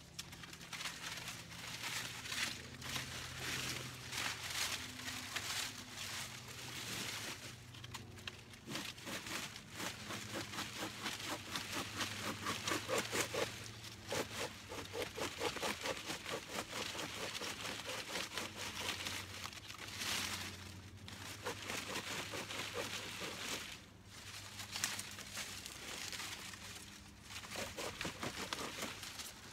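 Dry, dead yucca leaves crackling and rustling as they are handled and pushed about. In the middle there is a stretch of rapid, even, rhythmic scraping strokes.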